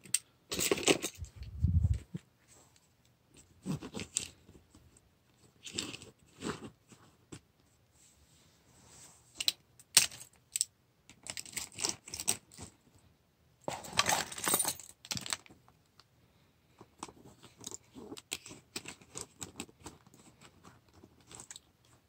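Small hard items such as pens clattering and clicking together while being packed into a canvas bag, with rustling of the bag's fabric. The sounds come in short scattered bursts with quiet gaps, the longest and loudest about two-thirds of the way through.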